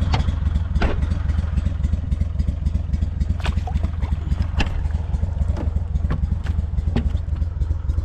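Small boat's outboard motor running steadily, a fast low throb, with a few sharp clicks over it.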